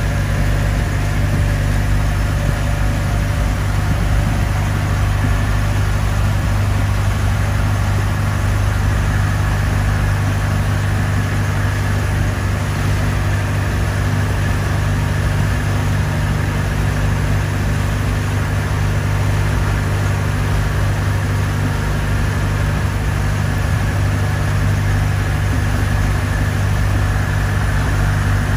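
Boat engine running steadily at a constant speed, a low even drone with a steady hiss of water above it.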